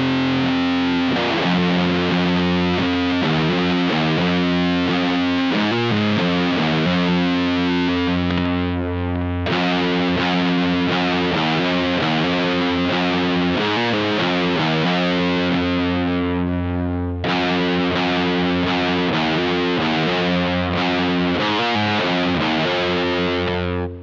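1993 Epiphone G400 electric guitar through a Magic Pedals Cthulhu Fuzz, a high-gain silicon fuzz, into a Matamp GT120 amp, playing a repeating riff of held fuzzed chords. The riff starts over about every eight seconds, and the playing stops just at the end.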